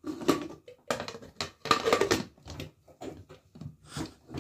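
Aluminium pressure cooker lid being twisted onto its pot to lock it: an irregular run of metal scraping and clattering as the lid handle is worked round towards the pot handle.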